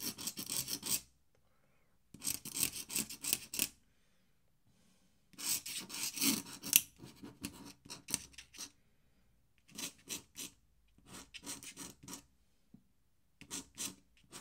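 Quick scratchy strokes of an ink pen on paper as fur and hatching are drawn in Indian ink. They come in about five short flurries of rapid strokes with brief pauses between.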